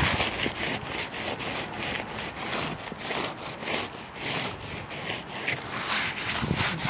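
Snow being scraped and brushed off a car roof by hand: quick, repeated rasping strokes.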